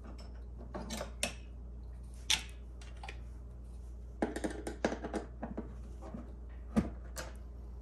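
Light clicks and scrapes of a hand screwdriver turning out the screws of a Predator 3500 generator's side panel, with a quick run of clicks about four seconds in and one sharp click near the end.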